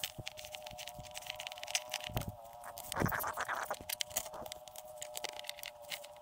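Fillet knife scraping and slicing between a perch fillet's flesh and skin on a plastic fillet board: a run of small scratchy ticks and scrapes. A steady hum runs underneath.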